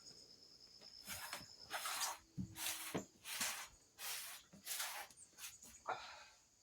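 Slow shuffling footsteps: about eight soft scuffs, one every three-quarters of a second or so.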